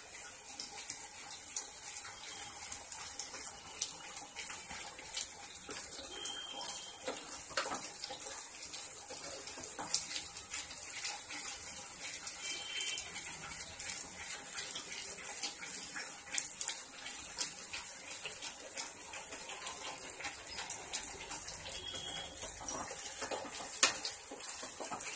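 Thick semolina upma bubbling and spattering in a nonstick pan while a wooden spatula stirs it: a steady hiss with frequent small pops and clicks.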